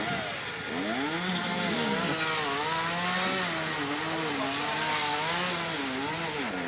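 Two-stroke chainsaw cutting into a large tree trunk, its engine pitch repeatedly dipping and rising as the chain bites and the load changes.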